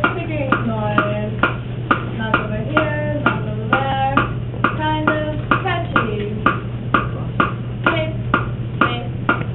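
Young voices singing a short chant over a steady ticking beat of about two sharp ticks a second.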